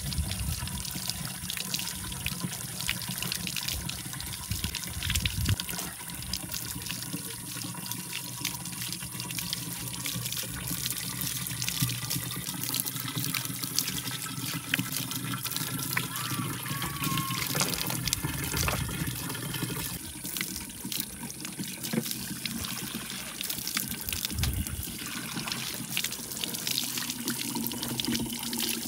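Water trickling and splashing steadily, with many small clicks and knocks throughout.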